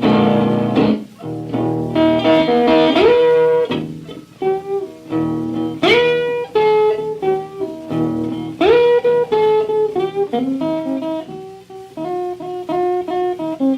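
Solo blues guitar break from a 1949 78 rpm record: picked single-note lines, with several notes bent upward.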